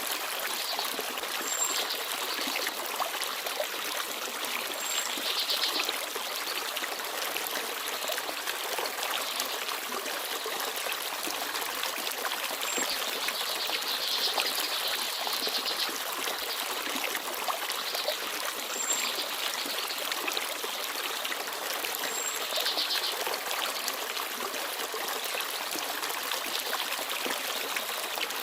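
Small forest stream babbling and trickling steadily over stones, with a small bird giving brief, very high thin chirps every few seconds.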